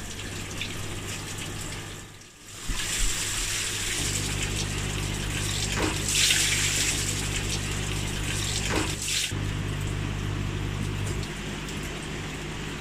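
Water gushing and splashing out of an opened 4-inch PVC inlet pipe of a pond filter as the blocked pipework is dismantled, hardest for about three seconds midway. A low steady hum runs underneath for much of it.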